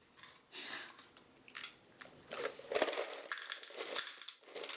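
Nuts clattering and rattling as they are handled and poured from a glass jar into a small metal serving dish, in a series of short bursts that are loudest in the middle.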